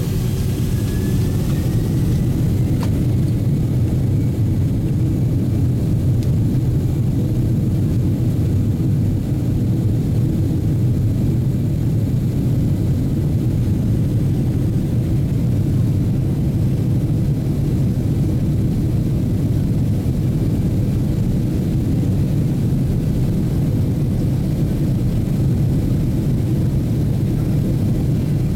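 Boeing 767-300 turbofan engines and runway noise heard from inside the cabin during the takeoff roll: a loud, steady low noise, with a faint rising whine in the first couple of seconds.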